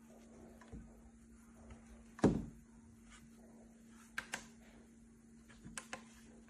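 One loud thump about two seconds in, then a quick pair of sharp clicks and a few more light clicks near the end, over a faint steady hum.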